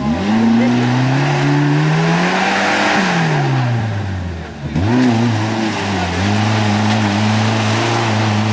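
Off-road vehicle's engine revving hard: the revs climb for about three seconds, drop back, then rise again about five seconds in and are held high and steady.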